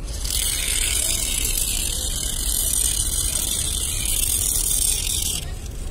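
Carpex tyre repair aerosol hissing steadily as it sprays sealant foam out through its hose, cutting off shortly before the end.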